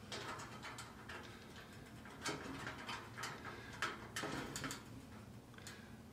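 Faint scattered clicks and rustles of insulated electrical wires being handled and twisted together.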